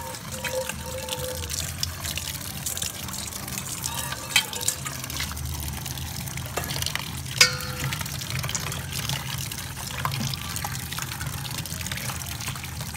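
Tap water running into a stainless steel bowl while hands squeeze and swish chopped green vegetable pieces in it, with splashing and scattered clicks. Two sharp knocks against the bowl ring briefly, the louder one about seven seconds in.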